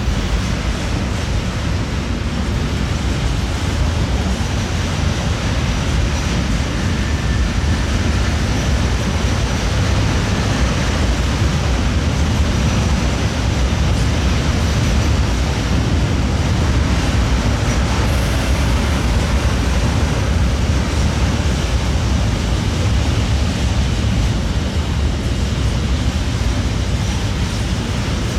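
Intermodal freight train rolling out of the station: steady heavy wheel and wagon rumble on the rails, with thin high-pitched wheel squeal coming and going above it.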